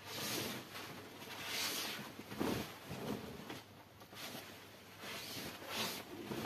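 Banarasi silk saree fabric rustling as it is unfolded and spread out by hand, in a string of irregular swishes.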